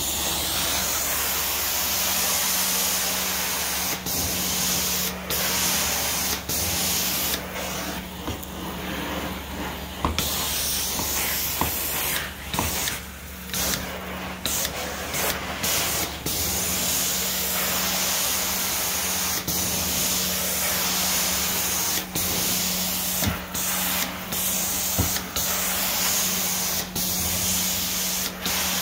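Carpet-cleaning extraction wand spraying hot water into the carpet and sucking it back up: a loud, steady hissing rush over a low machine hum, broken by short dips every second or two.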